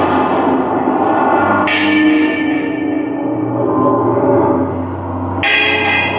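Live improvised music for a film score: gong-like metallic tones strike and ring out, dying away, twice about four seconds apart, over a low sustained drone.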